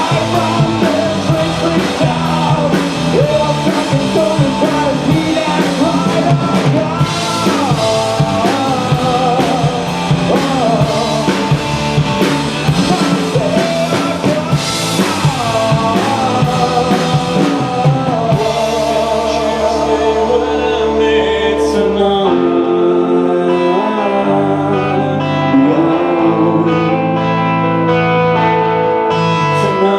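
Rock band playing live with drum kit, bass and guitar under a lead melody that bends in pitch. About twenty seconds in the drums and cymbals drop away and the music thins to held low chords.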